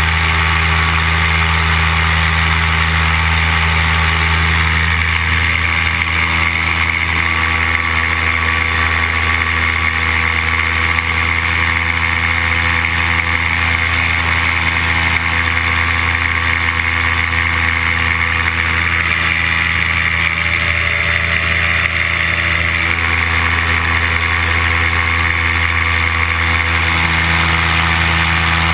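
Paramotor's two-stroke engine and propeller running steadily in flight, a constant drone with a rush of air over it; the pitch shifts slightly a few seconds in and again near the end.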